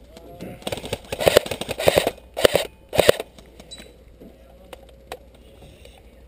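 Airsoft automatic gun firing four short bursts of rapid shots in quick succession, each burst a fast rattle of clicks, then stopping about three seconds in.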